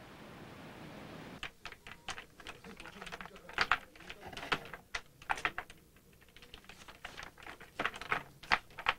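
Typing on a computer keyboard: a run of irregular clicking keystrokes that begins about a second and a half in.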